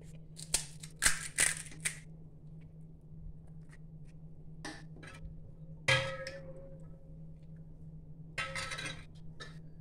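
Steel spoon and utensils clinking against metal pots and bowls: a few light knocks in the first two seconds, one clink with a short ring about six seconds in, and a brief clatter near the end.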